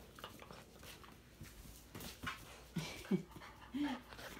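A young puppy moving about with a toy, soft rustling and scuffling, then a few short, soft whines in the last second and a half.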